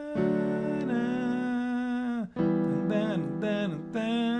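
Short stretches of music: sustained chords with a melody line sliding up and down over them. The music stops sharply and starts again twice.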